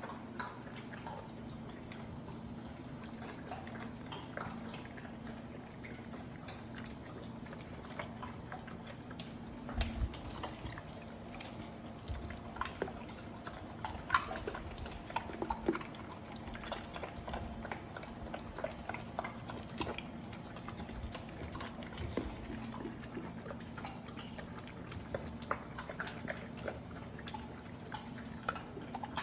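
A boxer and a Rhodesian Ridgeback eating dry kibble, one from a plastic slow-feeder bowl and one from a steel bowl: wet chewing and mouth sounds with many scattered clicks of food against the bowls, over a steady low hum.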